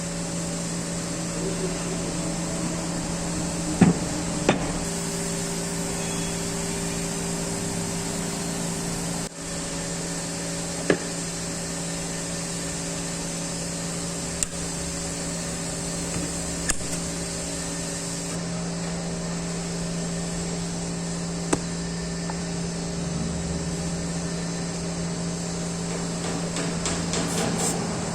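Single sharp knocks of a tool on metal, about half a dozen spread unevenly through, over a steady hum with several low tones.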